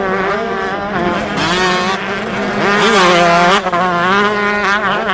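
Dirt bike engine revving, its pitch rising and falling several times.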